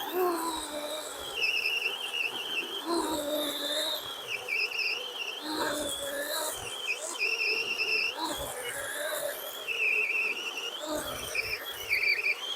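Birds singing and insects calling outdoors: high, wavering, whistled calls that come and go every second or two, over a few scattered low thumps.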